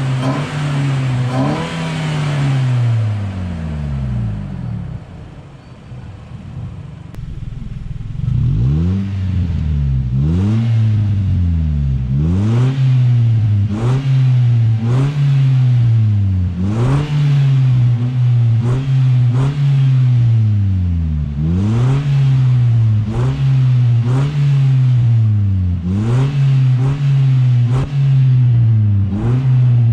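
Nissan NV350 Caravan's 2.0-litre QR20DE four-cylinder petrol engine, breathing through a GruppeM power cleaner intake and a Fujitsubo Authorize R aftermarket muffler, revved with the van standing still. A rev dies down to idle, then from about eight seconds in the engine is blipped over and over, about every second and a half. Each rev rises quickly and falls away.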